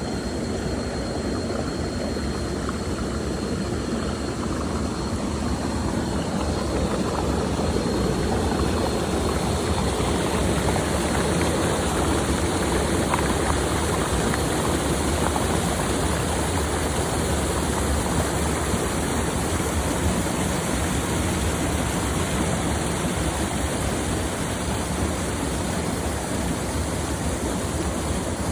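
Waterfall cascading, a loud steady rush of falling water. A faint steady high whine sits under it for the first ten seconds or so.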